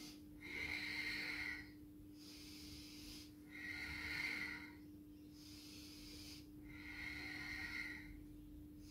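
A woman's audible breathing: three breaths about three seconds apart, paced to the forward-and-back circling of a seated yoga hip warm-up.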